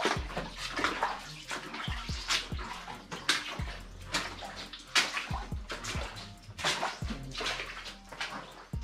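Footsteps splashing and sloshing through shallow water on a mine tunnel floor, a sharp splash every half second to a second. A music beat with deep, falling kick-drum thumps plays underneath.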